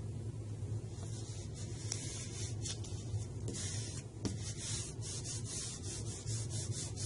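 Thick photo vinyl being handled and rubbed against a glass door by hand: a run of irregular scratchy rustles that starts about a second in, over a steady low hum.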